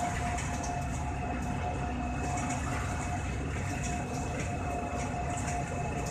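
Electric airport train running at speed, heard from inside the carriage: a steady low rumble with a thin, steady whine above it.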